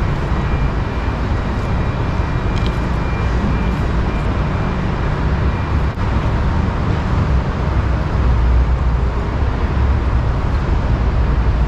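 Steady city road-traffic noise with a low rumble.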